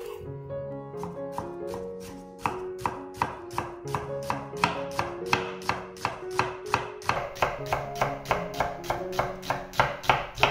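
Knife chopping on a cutting board in a steady rhythm of about three cuts a second, starting about two seconds in, over background music with sustained notes.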